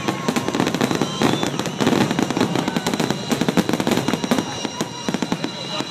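Fireworks display: a dense, rapid barrage of bangs and crackles from aerial shells launching and bursting overhead.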